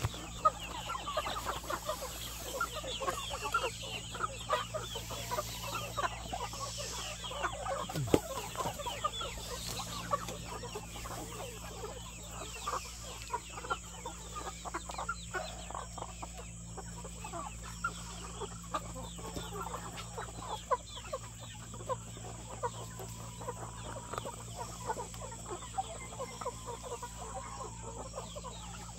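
A flock of chickens clucking and calling, many short calls overlapping one another.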